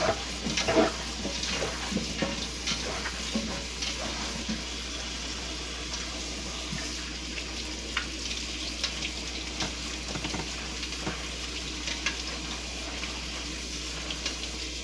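Kitchen faucet running a steady stream of water onto Brussels sprouts in a metal colander as they are rinsed by hand, with scattered light clicks from the sprouts and colander.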